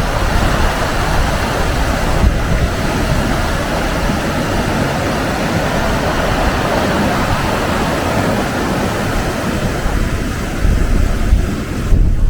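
Pabineau Falls on the Nepisiguit River: a steady rush of falling white water with no let-up.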